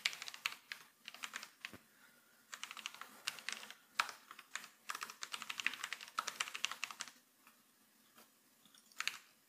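Typing on a computer keyboard in quick runs of keystrokes that stop about seven seconds in, followed by a couple of single keystrokes near the end.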